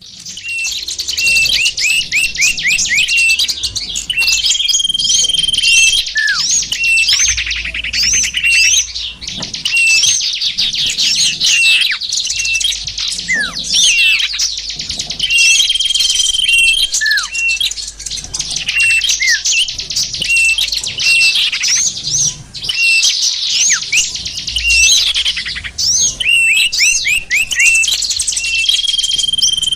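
Many small birds chirping and twittering at once, a dense, continuous, high-pitched chorus of overlapping quick notes with a few short held whistles: a small-bird lure call (suara pikat) for drawing in small birds.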